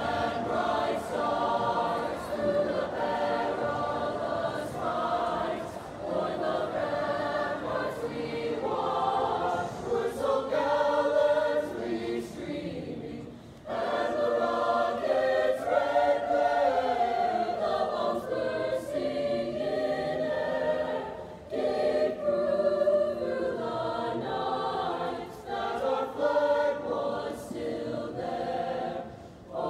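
Mixed high school choir of boys and girls singing together, with a brief break between phrases about halfway through.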